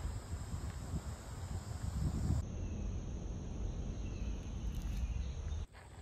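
Steady high-pitched insect chorus in summer woodland, over a low rumble; the chorus changes abruptly about two seconds in and again near the end.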